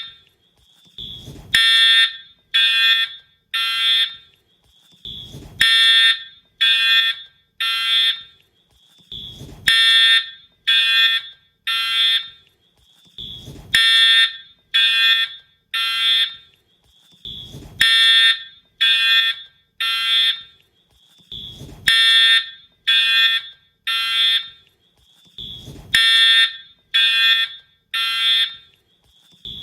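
Wheelock fire alarm horn sounding in the temporal-3 evacuation pattern: three short blasts about half a second apart, then a pause of about a second and a half, repeating about every four seconds. The horn has a harsh, buzzing tone, and a short low thump comes just before each group of three.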